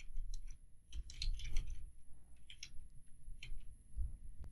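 Typing on a computer keyboard: an irregular run of keystroke clicks as a short line of text is typed.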